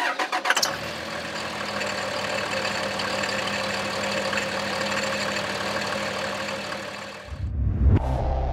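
Diesel engine idling steadily, after a quick run of clicks at the start. About seven seconds in it gives way to a deep low boom.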